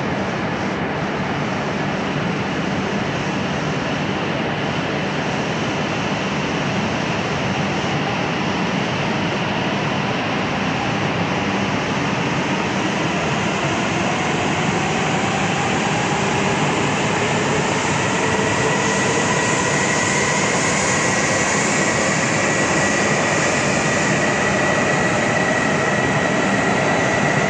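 Coupled E6-series and E5-series Shinkansen trains pulling out of the platform and gathering speed: a steady rolling rumble, with an electric motor whine that rises in pitch from about halfway through and a high steady tone over the last several seconds.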